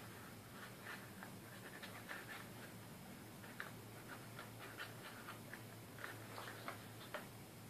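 Faint rustling and light clicks of a small cardboard packet being handled, over a low steady hum.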